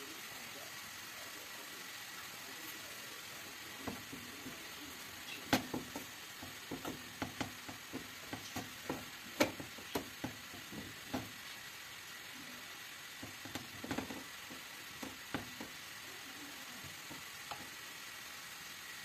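Chopped herbs frying in an aluminium pan with a soft steady sizzle. From about four seconds in until near the end, a wooden spatula stirs them in a run of irregular knocks and scrapes against the pan.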